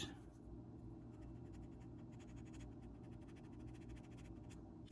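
Sandpaper rasping faintly against the carved body of a frog fishing lure in quick, even strokes.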